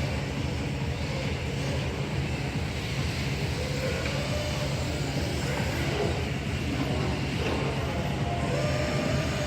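RC cars' motors whining, rising and falling in pitch as the cars race and drift around the track, over a steady low hum of hall noise.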